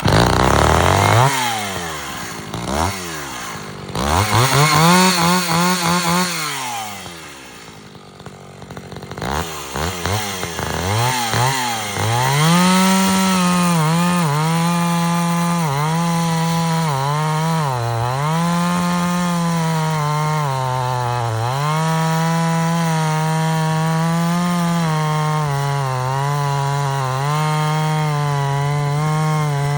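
Echo CS-550 EVL two-stroke chainsaw engine revving up and down several times, easing off briefly, then held at high revs with repeated small dips in pitch.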